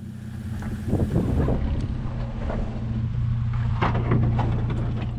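Ford Focus hatchback's engine running under load at steady revs as it climbs a rutted dirt slope, with scattered knocks and crunches from the wheels over dirt and stones, most clearly about a second in and again about four seconds in.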